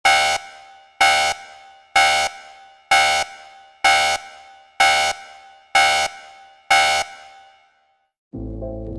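A loud horn-like blast sounded eight times, about once a second, each cut off after about a third of a second and trailing away in an echo. Music starts near the end.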